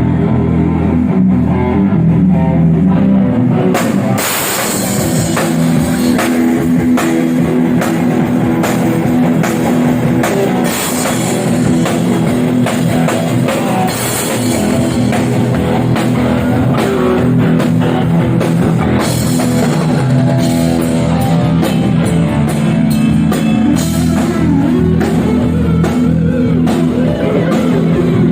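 Live rock band playing in a sound check: electric guitar and bass hold a chord, and the drum kit comes in with cymbal crashes about four seconds in. Near the end there are notes sliding up and down in pitch.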